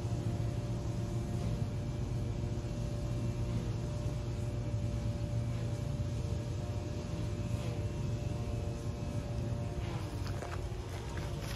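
Steady low mechanical hum of urban background noise, with faint steady tones above it.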